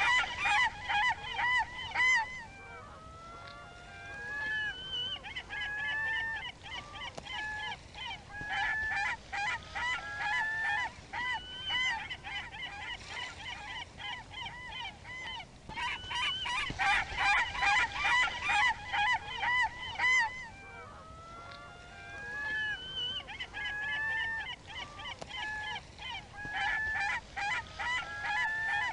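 A flock of gulls squawking, with many calls overlapping. Bursts of rapid calls come at the start and again about halfway through, and single rising and falling calls come between them.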